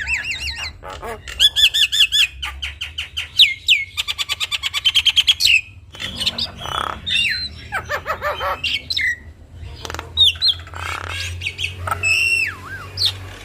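Javan myna singing a loud, varied song: runs of rapid repeated notes, a fast trill, gliding whistled notes and harsh squawks.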